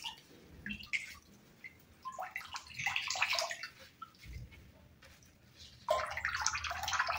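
Apple liquid dripping and trickling from a squeezed cheesecloth bag of grated apple into a glass bowl. This is the straining step of homemade apple cider vinegar. The splashing comes in irregular spurts, with the busiest one near the end.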